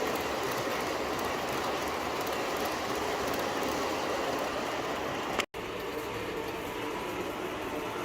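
Subway train running between stations with a steady rolling noise. The sound cuts out for an instant about five and a half seconds in.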